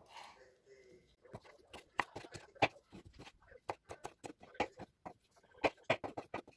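Kitchen knife dicing pickled cucumbers on a wooden cutting board: irregular quick taps of the blade striking the board, several a second.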